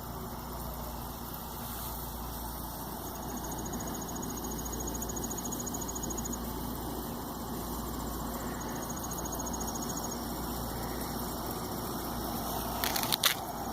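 Steady low outdoor background rumble, with faint high pulsing insect-like trills twice and a few clicks near the end.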